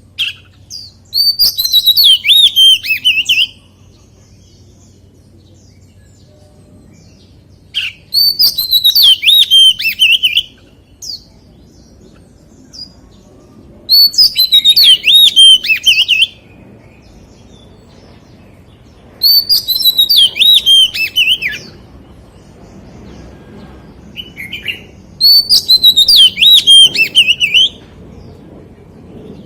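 Oriental magpie-robin singing: five loud phrases of quick, rising and falling notes, each about two seconds long, repeated about every six seconds.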